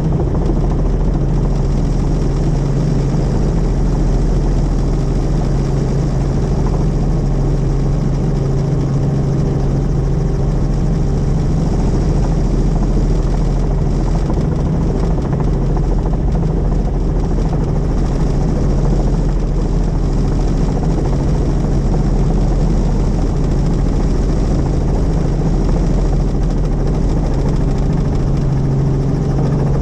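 Helicopter in flight: a steady, loud drone of rotor and engine with a low hum that holds level throughout.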